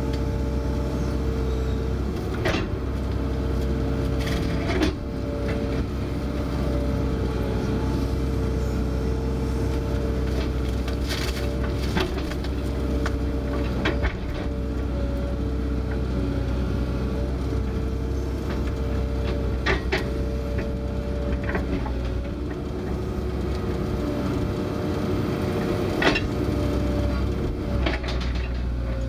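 Kobelco SK160 excavator running steadily, heard from inside the cab: a low diesel rumble with a steady whining tone. A handful of sharp clanks come at irregular intervals as the bucket and thumb work.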